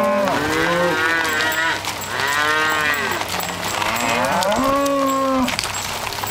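A herd of cattle mooing, several animals calling at once with overlapping calls that rise and fall in pitch.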